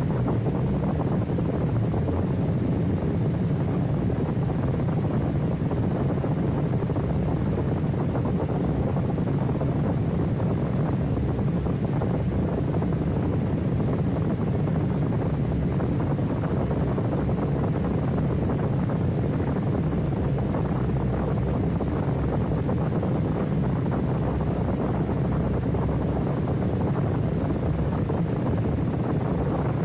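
Badland F3 ultralight's engine and propeller running steadily on the ground, with wind buffeting the microphone.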